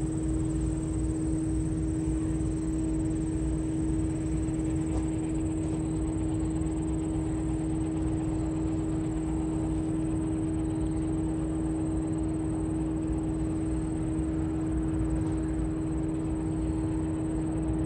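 Steady engine drone: a constant low rumble with an even, unchanging hum over it.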